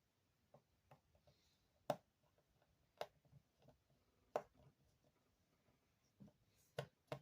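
Faint, scattered clicks and taps of a small screwdriver against screws and the metal of an opened iPhone as a long screw is driven in, about half a dozen sharp clicks with the loudest about two and four and a half seconds in.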